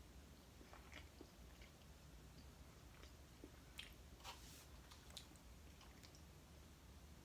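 Faint chewing and biting: a person eating a microwaved pancake and sausage on a stick, with scattered small mouth clicks, a few louder ones around the middle.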